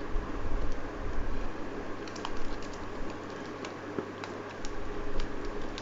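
Scattered light clicks and taps of a sealed smartphone box being handled and cut open, over a steady low hum.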